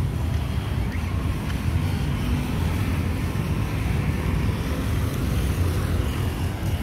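Steady street rumble of traffic on a beach-front road, with wind buffeting the microphone as a choppy low rumble underneath.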